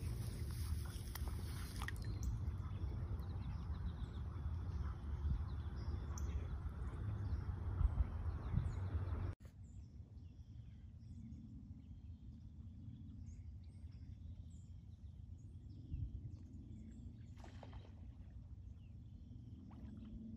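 Outdoor pond-side ambience with a steady low rumble that drops off abruptly about nine seconds in. Quieter ambience follows, with faint scattered bird chirps.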